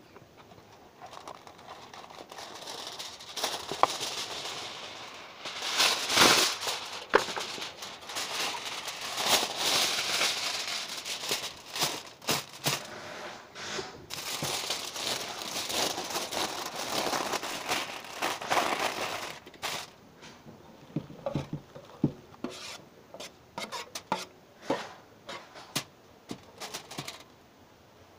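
Aluminium foil crinkling and rustling as it is handled and spread out, followed from about two-thirds of the way in by scattered light clicks and taps as a metal pan is handled over it.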